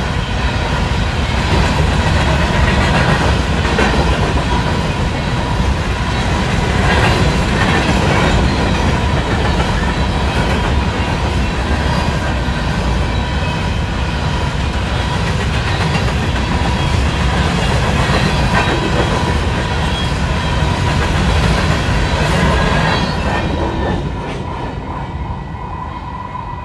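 Freight train's hopper cars rolling past close by: a steady heavy rumble with wheels clacking over rail joints. The sound trails off near the end as the last car goes by.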